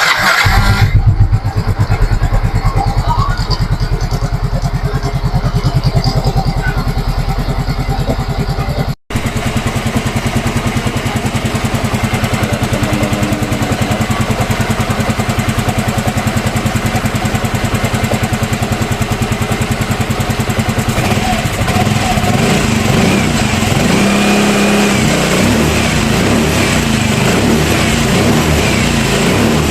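Yamaha Mio M3 scooter's 125 cc single-cylinder engine starting and then running steadily, with its camshaft bearing freshly replaced to cure a rough noise from the engine. There is a very short break about nine seconds in.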